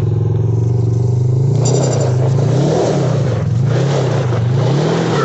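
Polaris RZR side-by-side's engine running steadily, then revved hard about one and a half seconds in, its pitch surging up and down about once a second while the tyres spin and scrabble in loose dirt: the stuck machine straining for traction to climb back onto the road.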